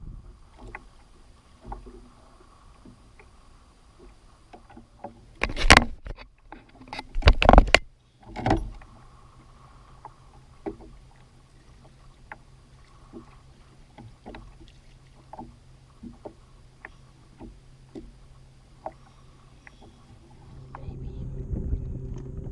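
Small knocks and water slaps on a fishing kayak's hull while it drifts, with a cluster of loud bumps and rustles in the middle.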